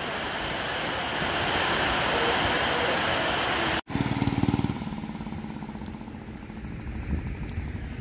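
Heavy tropical downpour pouring steadily onto flooded paving and water, cut off abruptly almost four seconds in. It is followed by a quieter low rumble with a faint steady hum.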